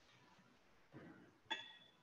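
Near silence in a room, broken by a faint shuffle about a second in and then a short, bright ringing clink that dies away quickly.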